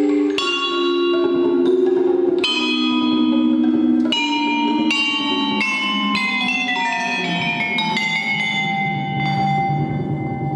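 Vibraphone struck with mallets, its metal bars ringing out in overlapping sustained notes that step downward in pitch over the second half, together with the piece's pre-recorded tape part.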